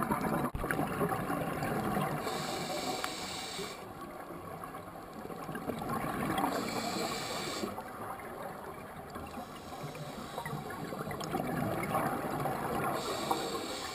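Scuba regulator breathing heard through an underwater camera housing: three hissing inhales, a few seconds apart, with gurgling exhaled bubbles between them.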